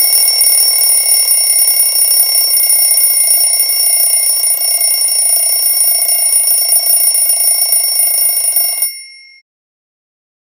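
Alarm clock bell ringing loudly and continuously, then cutting off suddenly about nine seconds in with a brief ring-down.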